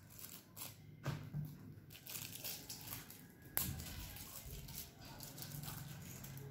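Thin plastic straw wrapper crinkling and tearing as a juice-box straw is pulled out of it, with a sharp click about halfway through.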